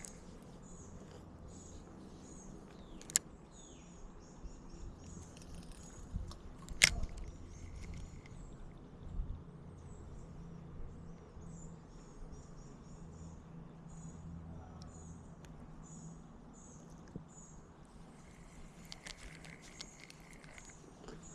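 Small birds chirping in quick, high, repeated notes over a low steady outdoor hum, with two sharp clicks, the louder about seven seconds in.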